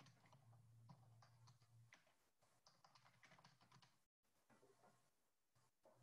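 Faint computer keyboard typing: a run of quiet, irregular key clicks, with a faint low hum during the first couple of seconds.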